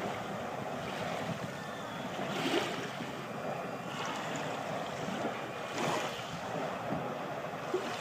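Small, gentle waves lapping onto a sandy, shingly shore: a steady wash that swells a little as each wave breaks, about every three seconds, with some wind on the microphone.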